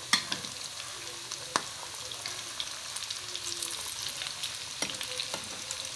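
Breaded chicken pieces deep-frying in hot oil: a steady sizzle with a few sharp crackles.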